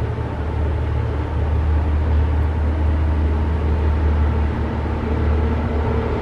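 Diesel engine of Queensland Rail locomotive 2414 running as it approaches under load. It makes a steady low rumble that grows a little louder about two seconds in.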